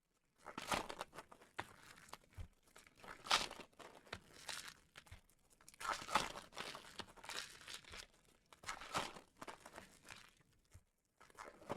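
Foil trading-card pack wrappers being torn open and crinkled, in irregular rustling bursts with about five louder tears spread through.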